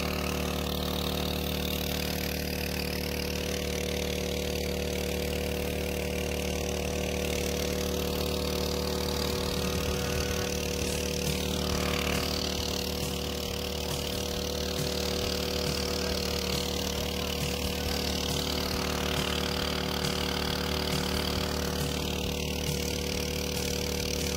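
Small single-cylinder gasoline engine of a portable water pump running steadily at constant speed while pumping pond water out through its hoses.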